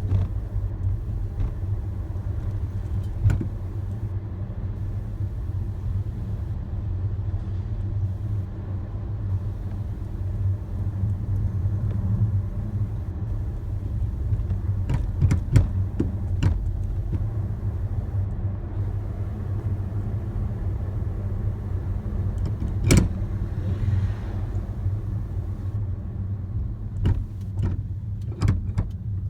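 A Toyota Estima being driven, with steady road rumble broken by irregular sharp knocks and rattles. The knocks are the abnormal noise from a TEIN coilover on the left rear suspension.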